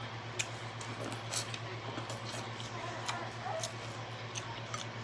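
Scattered wet mouth clicks and smacks of someone chewing food, over a steady low hum.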